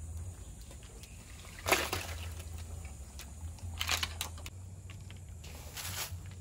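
Handfuls of leafy vegetables dropped into a wok of steaming water, splashing three times, about two, four and six seconds in, over a low steady rumble.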